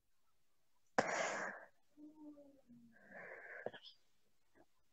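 A woman's breathy exhalations, like soft laughs: a short puff about a second in and another just after three seconds, with a faint low voiced hum between them.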